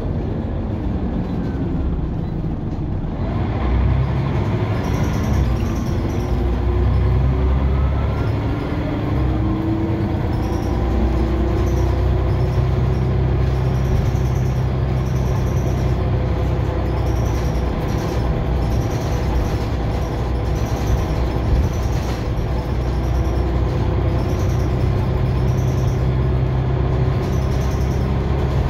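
Scania OmniCity single-deck bus's diesel engine and driveline heard from inside the saloon while driving, with a steady low rumble and engine pitch slowly rising and falling with road speed.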